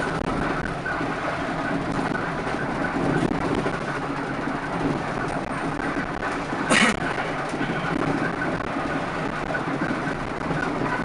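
Steady rumble and rattle of a moving bus, with one short, loud hiss about seven seconds in.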